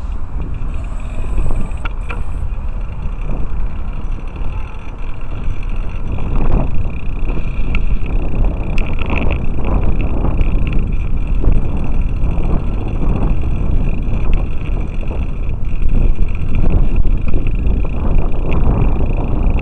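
Wind buffeting the microphone with road and tyre rumble from a bicycle being ridden, a loud, steady, low rush.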